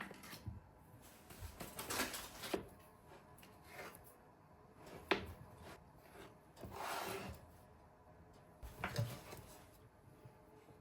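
Scattered handling sounds of a person working by hand: light knocks and rubbing, a sharp click about five seconds in, and a short rustling scrape around seven seconds.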